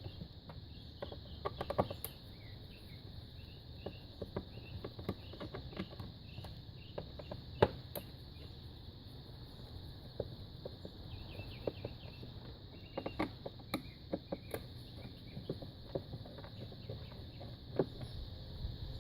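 Scattered light clicks and knocks of plastic engine-bay covers and intake parts being handled and unclipped, the sharpest about seven and a half seconds in, over a steady high-pitched drone.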